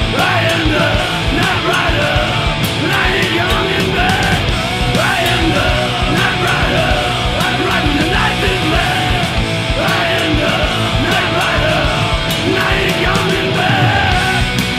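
Punk/heavy metal band playing fast and loud, heard in a rough demo mix: distorted electric guitars, bass and drums, with a melodic line bending and holding notes over the top.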